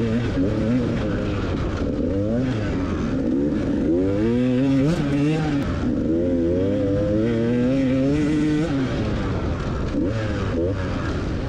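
Dirt bike engine revving up and down as it is ridden off-road, its pitch rising and falling repeatedly with the throttle, and dropping off about nine seconds in.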